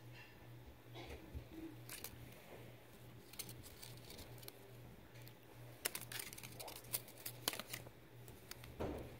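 A rolled paper collectible leaflet from a Yowie egg being handled and unrolled by fingers: faint rustling and crinkling with a cluster of sharp paper clicks from about six to seven and a half seconds in. A faint steady low hum runs underneath.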